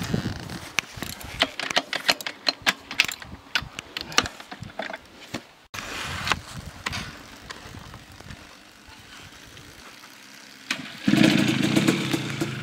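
A run of sharp clicks and knocks. About a second and a half before the end, a KTM 250 SX single-cylinder two-stroke engine comes in suddenly and keeps running.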